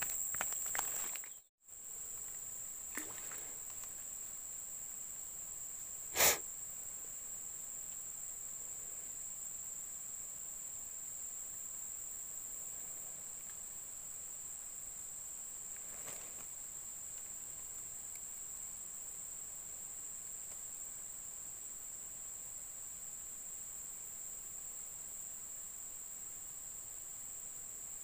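Steady high-pitched insect drone, broken by a brief gap near the start, with one short sharp click about six seconds in.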